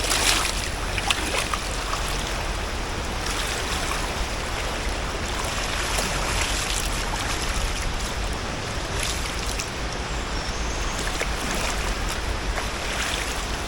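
River water running over rocks: a steady rushing noise from the flowing current, with a few short, louder splashy moments.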